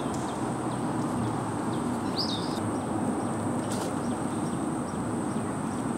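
Steady outdoor background noise with a thin high-pitched whine throughout, a short bird chirp about two seconds in and a faint click near four seconds.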